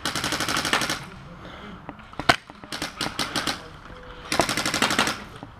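Airsoft rifle firing short full-auto bursts of rapid clicking shots: one at the start, a few shots near the middle with a lone shot just before, and another burst near the end.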